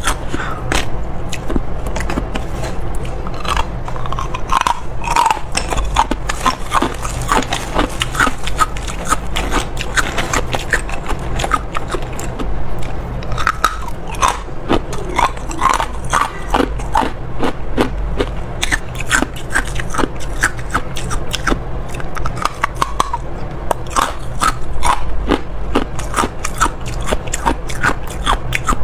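Close-up crunching of hard ice being bitten and chewed, a rapid, irregular run of crisp crunches several times a second that goes on without a break.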